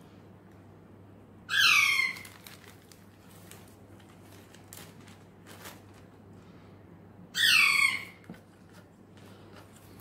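A parrot screeching twice, about six seconds apart: two loud, harsh calls that each fall in pitch. A low steady hum runs underneath.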